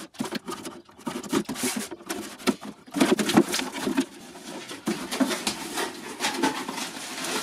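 A small cardboard box being opened: a knife slitting the tape, then the flaps pulled and folded back, with cardboard rubbing and scraping and many sharp clicks. The handling gets busier about three seconds in.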